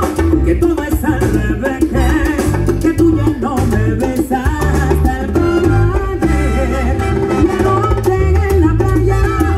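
Salsa band playing at full volume, a lead voice singing over congas and percussion with a steady beat.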